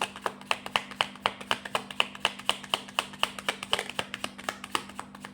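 A deck of oracle cards being shuffled by hand: a steady run of crisp card slaps, about four to five a second, stopping near the end, over a faint steady low hum.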